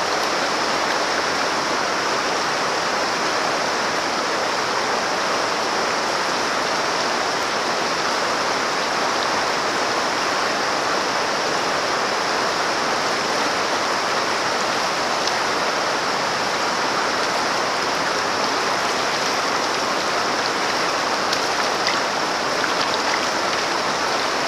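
Steady rush of a shallow, rocky river riffle, water running fast over stones around a wading angler's legs.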